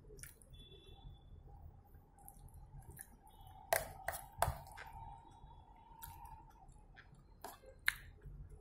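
Metal fork and knife clinking and scraping against a ceramic plate while eating, with three sharper clinks, two close together near the middle and one near the end, and soft chewing.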